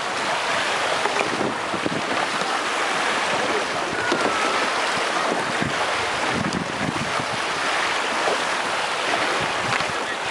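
Steady wind noise on the microphone over splashing water from kayak paddles working in a pool.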